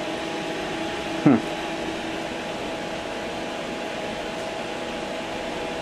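Altair 8800 computer powered up and running, its cooling fan and power supply giving a steady hum with several steady tones. A short voice sound cuts in about a second in.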